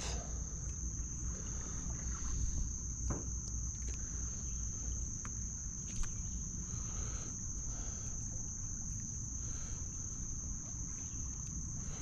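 Insects trilling, one unbroken high-pitched note, over a low rumble, with a couple of faint clicks.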